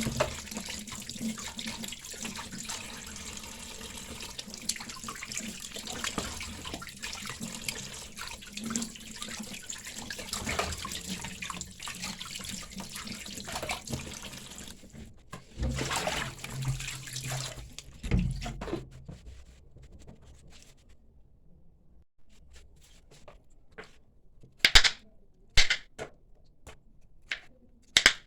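Water running from a tap into a sink for about fifteen seconds, then stopping. A few dull thuds follow, and near the end several sharp knocks.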